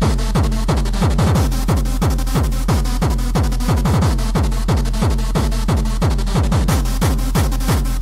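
Gabber-style hardcore techno played through a club sound system, with no vocal. Fast, distorted kick drums hit about three times a second, each falling in pitch.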